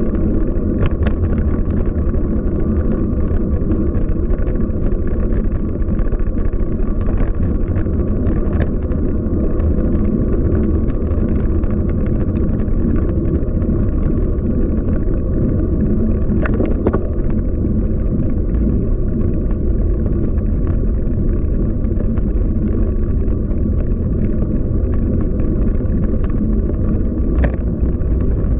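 Steady wind noise on the microphone and road rumble from a road bike being ridden. A few sharp clicks or knocks, likely from bumps in the road, come about a second in, near the middle and again near the end.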